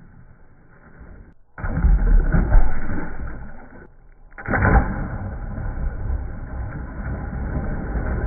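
Slowed-down, deep splashes of objects dropped into pool water: a heavy splash about one and a half seconds in that dies away, then after a short break a sharp, loud splash as water balloons hit the water, followed by steady churning.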